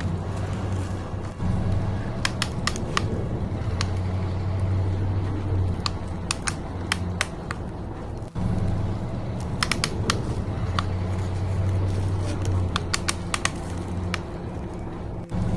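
Steady low drone of RC construction trucks' motors, with clusters of sharp clicks and rattles over it, broken twice by brief cuts.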